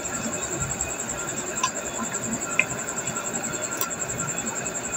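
Spiced masala sizzling and crackling in hot oil in a cooking pot as raw mutton pieces go in, with a few light clicks of the meat and spoon against the pot. A thin steady high-pitched whine sits in the background.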